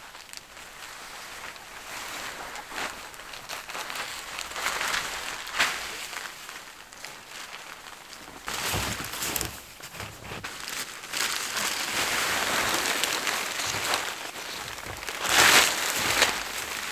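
A large tarp being pulled up, shaken and folded by hand, its fabric rustling and swishing irregularly, with the loudest swish near the end.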